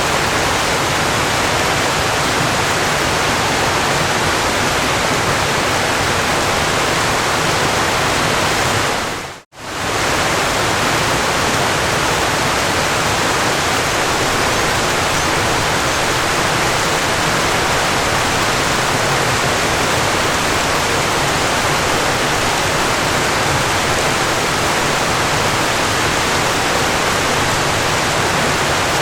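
Steady, even rush of falling water, like a waterfall, with a brief drop to near silence about nine and a half seconds in.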